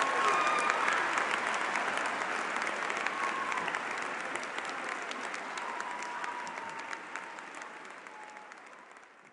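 Large crowd clapping in sustained applause that fades out steadily toward the end.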